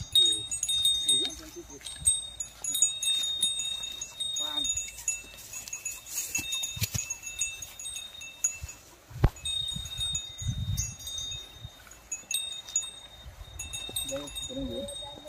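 Outdoor ambience of repeated high-pitched chirping that keeps stopping and starting, with faint voices near the start and near the end. A sharp knock comes about nine seconds in, followed by a low rumble.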